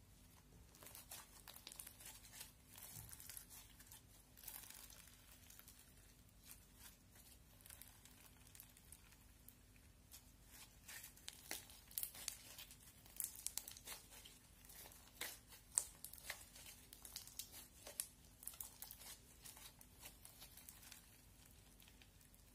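Hands stretching, folding and squeezing a foam-bead slime (floam): a run of sharp crackles from the beads and sticky slime, busiest in the middle and dying away near the end.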